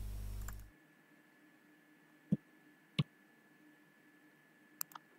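A steady low hum that cuts off under a second in, then quiet broken by two computer mouse clicks about two-thirds of a second apart, and two faint ticks near the end.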